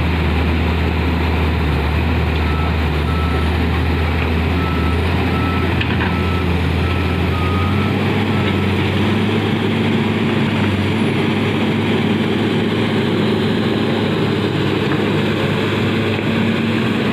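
JCB wheel loader's diesel engine running under load, its low note rising to a higher pitch about halfway through. A reversing alarm beeps steadily through the first half.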